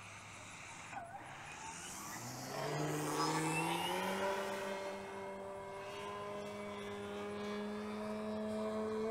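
Electric motor and propeller of a 78-inch Extreme Flight Edge 540 RC airplane in flight, a whine that climbs in pitch as the throttle comes up about two seconds in, with a rush of propeller noise, then holds a steady pitch.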